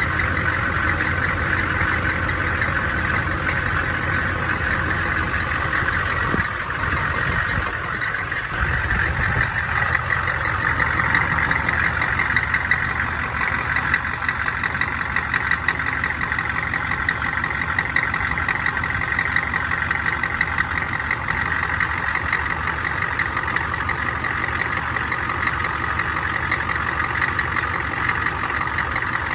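Engine idling with a rapid, high-pitched banging knock. It sounds like a cracked flexplate or loose crank bolts.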